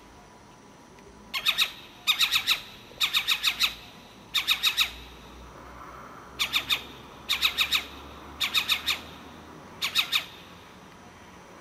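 An owl calling at night: eight short runs of three to six sharp, squawking notes in quick succession, about ten notes a second, with short pauses between the runs.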